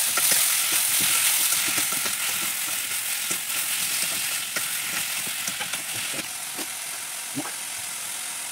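Cubed potatoes frying in hot oil in a wok, with a steady sizzle that is loudest at first and slowly fades. A metal slotted spoon and spatula stir them, clicking and scraping against the wok now and then.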